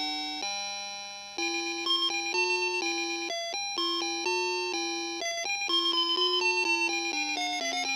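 Small World Worker DX karakuri alarm clock playing its bell-like chime melody: a tune of clear notes, each struck and quickly fading. There is one longer low note about half a second in and a quick run of notes near the end.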